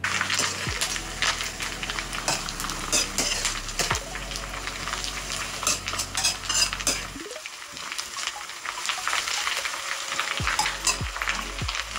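Dried anchovies sizzling and frying in hot oil in a metal wok, being toasted crisp, while a metal spatula stirs them with frequent scraping clicks against the pan.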